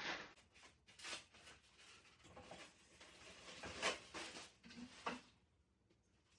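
Faint rustling and handling noises, a few short brushing or scraping strokes, the loudest about four seconds in.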